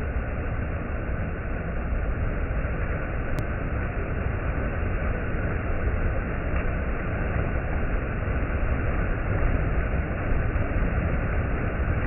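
Mountain stream rushing over rocks in a small cascade: a steady, even rush of water with a heavy low rumble.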